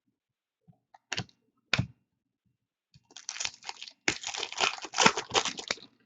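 A trading card pack wrapper being handled and torn open: two sharp snaps, then a few seconds of crackling, crinkling tearing.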